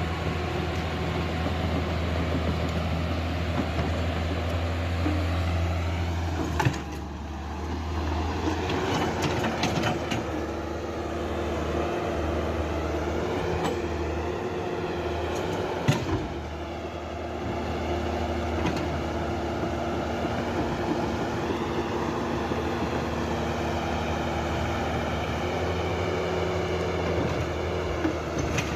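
Mini excavator's diesel engine running steadily while it works its hydraulics, with a whine that rises and falls and two sharp knocks, about a quarter of the way in and just past halfway.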